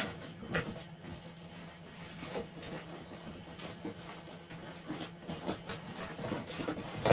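Scattered light clicks and rustles of plastic RC car parts being handled and rummaged through in a box, over a faint steady hum.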